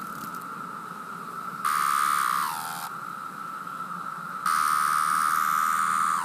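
Cicadas droning in a steady chorus. Twice a nearby cicada calls loudly for a second or more, its call sliding down in pitch at the end.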